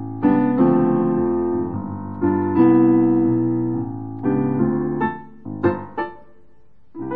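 Kawai CA17 digital piano playing on its Mellow Grand piano voice, which has a smooth, soft tone: sustained chords that ring and fade. About five seconds in come a few short, separate chords, then a brief pause before a new chord.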